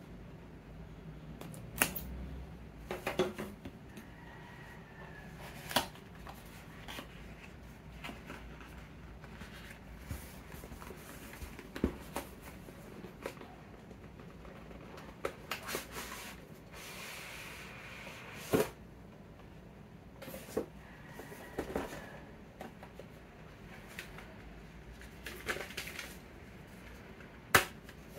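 Cardboard packaging being handled and opened: scattered taps, clicks and light scrapes of card and paper as the box seal is cut with a blade and the flaps are pulled open, with a longer rasping scrape partway through.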